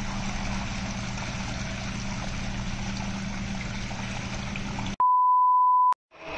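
A steady rush of water running out of the robot's acrylic tank into a plastic bin, over a faint low hum. About five seconds in it cuts off abruptly for a loud, single-pitched test-tone beep lasting about a second, the tone that goes with a colour-bars test card.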